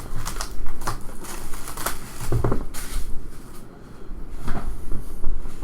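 A trading-card hobby box being opened by hand: irregular crinkling, rustling and clicking of wrapping and cardboard, quieter for a moment in the middle.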